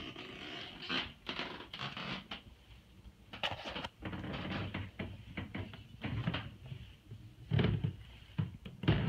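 Footsteps climbing a carpeted staircase: a run of irregular soft thumps and rustling, with two heavier thumps near the end.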